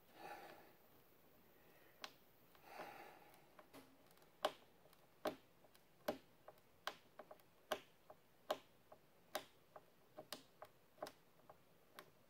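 Hand screwdriver driving a wood screw into a plywood board, giving sharp clicks at a little more than one a second as it turns. Two short soft rasps come in the first three seconds.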